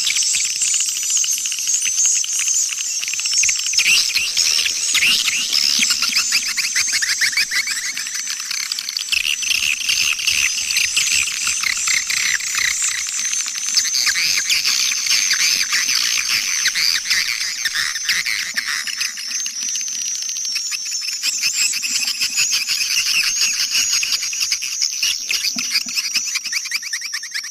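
Recorded swiftlet lure call (suara panggil walet): a continuous, dense chorus of rapid, high twittering chirps from edible-nest swiftlets over a steady high ringing tone, played to draw swiftlets into a swiftlet house.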